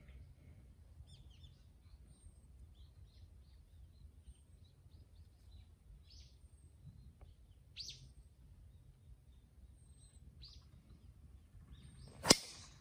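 Faint bird chirps over quiet outdoor background, then near the end a single sharp crack as a driver strikes a golf ball off the tee.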